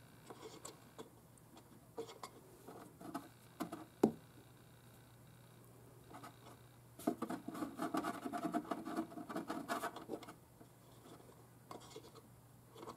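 Scratchy crackles and clicks as the red speaker lead is handled at the terminals of a Marshall Gold Back guitar speaker, a check for a broken wire or poor contact. There is one sharp click about four seconds in and a denser stretch of crackling from about seven to ten seconds, over a steady low hum.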